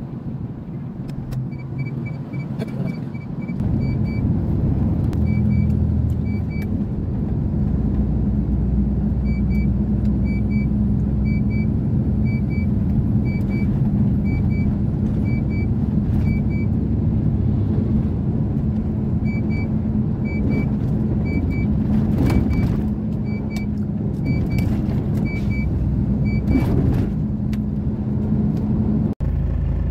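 Truck engine running steadily in the cab while driving on the highway, a low hum that grows louder about four seconds in. A faint high electronic beep repeats about twice a second in spells over it.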